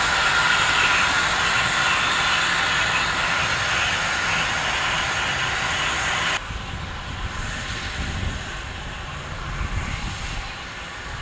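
Steam locomotives of a doubleheader, a class 15CA and a class 25NC, giving a loud, steady hiss of steam. The hiss drops off suddenly about six seconds in, leaving a quieter, lower rumble.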